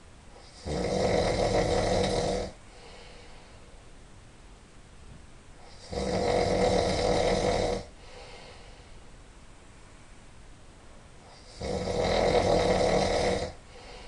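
A man snoring in his sleep: three long snores of about two seconds each, one every five to six seconds, with faint breathing between them.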